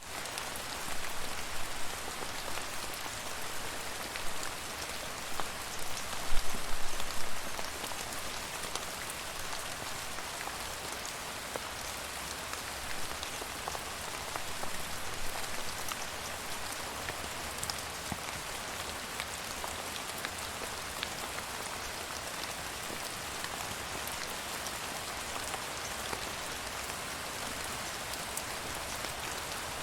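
Steady rain falling: an even hiss with individual drops ticking on a surface. It comes in heavier surges over the first several seconds, strongest about six to seven seconds in, then settles to a constant patter.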